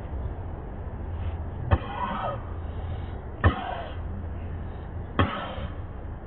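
A sick rhesus macaque mother coughing three times at an even pace, each cough a sharp hack with a short falling voiced tail, over a steady low rumble.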